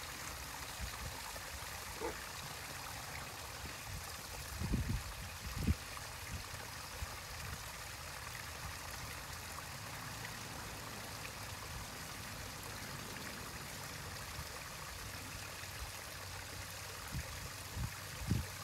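Steady trickle of running water at a backyard pond, with a couple of dull low thumps about five seconds in.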